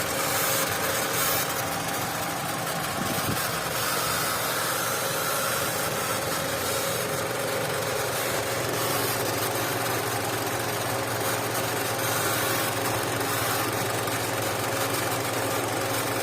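Mitsubishi Lancer engine idling steadily, with a steady tone running over the idle; an odd engine noise that could be a faulty PCV valve.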